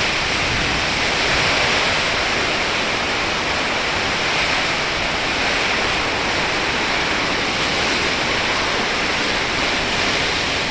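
Heavy rain pouring down in a storm: a loud, steady hiss.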